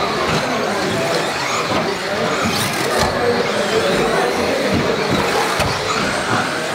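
1/10 scale electric 4WD off-road buggies racing on an indoor carpet track, with motors whining and tyres scrubbing. A few knocks come as the cars land jumps or hit the barriers.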